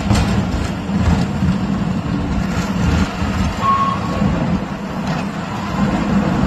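Motor vehicle engine running steadily as a low rumble, with one short high beep about three and a half seconds in.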